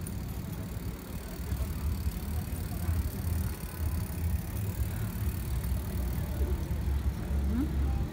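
Wind buffeting the microphone in gusts, a low rumble that swells and falls, over faint outdoor bustle of people walking and cycling past.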